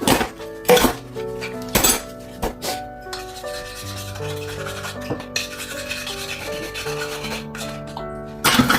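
Kitchen clean-up sounds: dishes and pans clattering a few times, mostly in the first three seconds and once near the end, with scrubbing between them, over background music of held notes.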